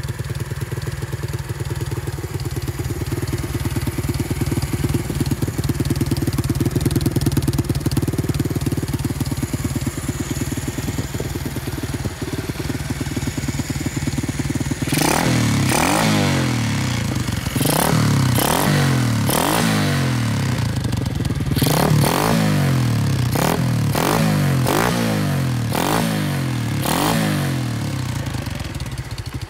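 A 125 cc pit bike's single-cylinder engine, heard through an aftermarket Akrapovič-style silencer, idles steadily for about the first half. It is then revved in a run of about ten quick throttle blips, each rising sharply and dropping back to idle.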